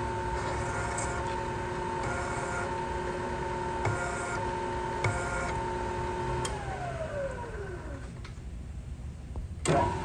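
Milling machine spindle running with a countersink tool cutting into a bolt hole in an aluminum brake caliper, with a few short cutting passes. About six and a half seconds in, the spindle is switched off and winds down with a falling whine. Near the end the running spindle sound comes back suddenly.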